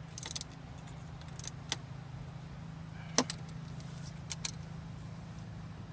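A metal wrench clinking and clicking against engine parts in a Mazda Miata's engine bay. There are a handful of separate sharp clinks, with the loudest about three seconds in, over a steady low hum.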